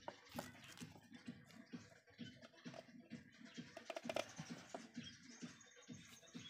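Faint, irregular clicks and scratching of hands handling a motorcycle's coil housing and its wiring, with a louder cluster of clicks about four seconds in.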